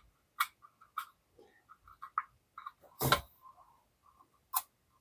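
Scattered sharp clicks and light taps of a screwdriver working at a trapped screw in an old steam iron's housing, the loudest about three seconds in, with faint small squeaks between them.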